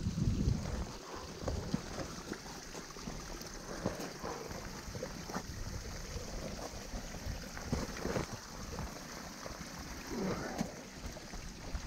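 Wind buffeting a chest-mounted action camera's microphone, heaviest in the first second and again near the end, with scattered rustles of a jacket and scrapes of gloved hands and boots on wet rock and snow while scrambling.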